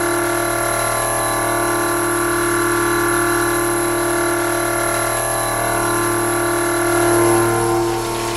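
Milling machine cutting steel with an indexable-insert cutter: a steady whine of several held tones, slightly louder about seven seconds in.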